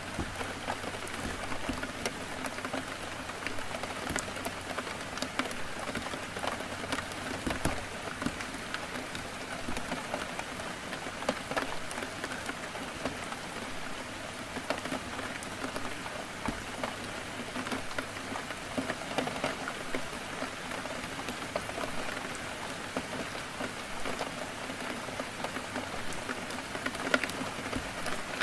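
Heavy rain falling steadily, with a dense patter of individual drops striking a window.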